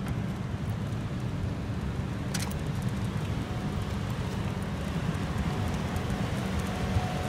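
Steady low outdoor rumble with a fainter hiss over it, with one short sharp click about two and a half seconds in and a faint steady tone joining about halfway through.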